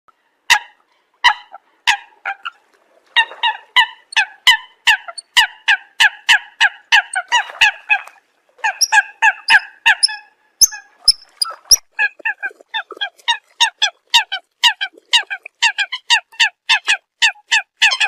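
Eurasian coot giving its flock-gathering call: short, sharp honking calls, a few spaced ones at first, then a rapid run of about three a second from about three seconds in.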